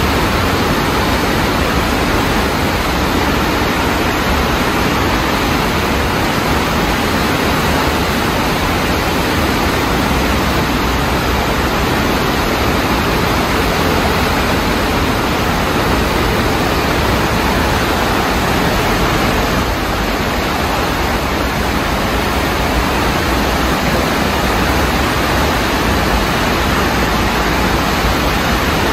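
Fast-flowing muddy floodwater rushing past, a loud, steady rush of water with no breaks.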